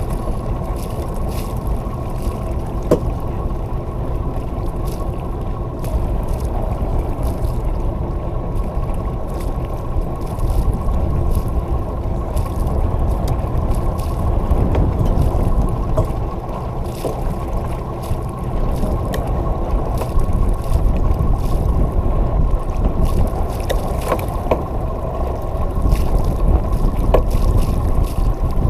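Wind on the microphone and water washing along the hull of a sailboat under sail: a steady low rushing, with a few light clicks.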